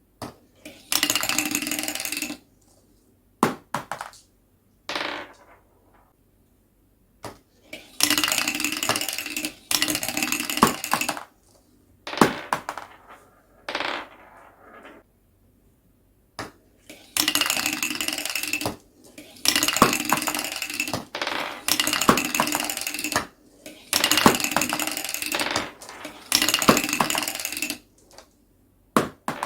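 Marbles rolling and rattling along a marble run track in long runs of one to two seconds, about seven in all, with single clicks and knocks of marbles dropping and striking between them.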